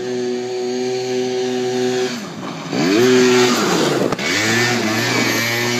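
Apache quad bike's small engine running at steady revs, then easing off about two seconds in. It revs sharply up, drops away and climbs again to a steady pitch as the quad spins donuts on loose dirt. It is loudest about three seconds in as it passes close.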